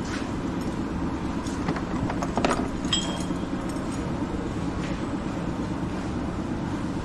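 Toyota Etios diesel engine running steadily with a low rumble while the injector fuel-line fittings are worked on by hand. A few short metallic clinks come about two and a half to three seconds in.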